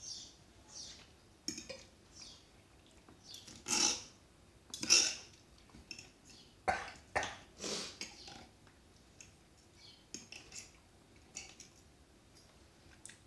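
Eating sounds: scattered short clinks and clicks of cutlery on plates, mixed with short mouth noises, with two louder ones about four and five seconds in.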